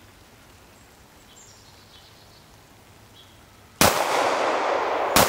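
Two 9mm pistol shots from a Buffalo Cartridge BRG9, about a second and a half apart near the end, each followed by a long echoing tail. Before them only faint outdoor background.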